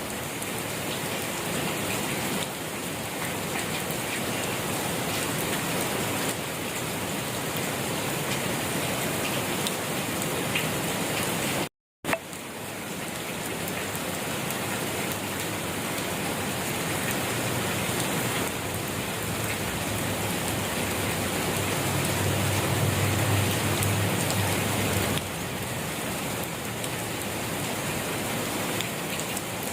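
Steady rain falling, an even hiss of drops hitting surfaces. The sound drops out for a split second about twelve seconds in, and a low rumble swells under the rain for a few seconds in the second half.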